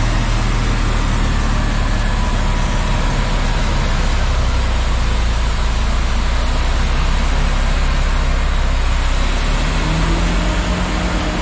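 John Deere wheel loader with a front-mounted snowblower attachment working a snowbank: a steady heavy diesel engine drone under the blower's loud continuous rush as it throws snow. The engine pitch rises slightly near the end.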